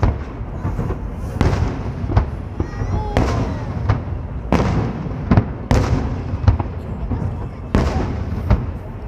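Fireworks display: loud, sharp bangs of shells bursting about once every second or faster, over a steady low rumble from the barrage.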